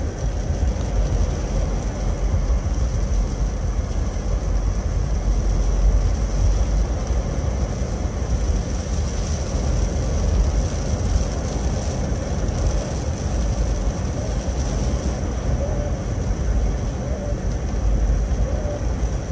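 Steady road and engine rumble of a moving car, heard from inside the cabin, with a faint steady high whine over it.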